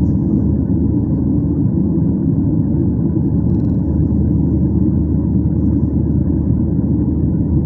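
Steady low rumble of jet engines and rushing air heard inside an airliner's cabin in flight.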